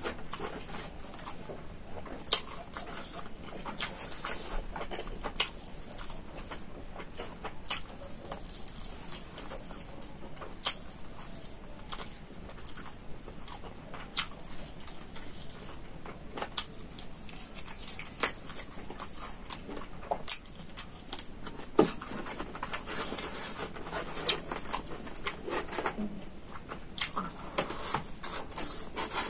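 Close-miked eating: chewing and wet lip-smacking mouth clicks, with fingers picking rice and chicken from a styrofoam food box. The clicks come at an uneven pace, a few of them sharper and louder than the rest.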